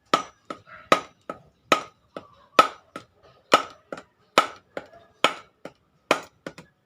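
Rubber mallet knocking on a bicycle suspension fork to free a stuck part: a steady run of blows, a hard one a little under once a second with lighter taps between, each with a short metallic ring.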